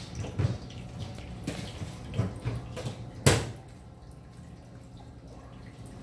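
Stainless steel pet drinking fountain trickling steadily, its water streams falling into the bowl, over a low steady hum. Several light knocks and splashes come as a cat paws at the spout, ending in a sharp knock about three seconds in.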